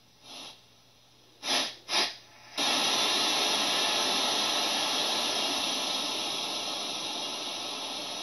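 Electronic static hiss, like a detuned screen: a faint swell, then two short loud bursts, then a steady hiss that starts suddenly about two and a half seconds in and slowly fades.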